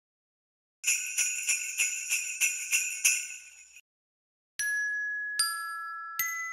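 Sleigh bells shaken in an even rhythm, about three shakes a second, for about three seconds. After a short pause, three single bell-like notes are struck one at a time, each ringing and fading.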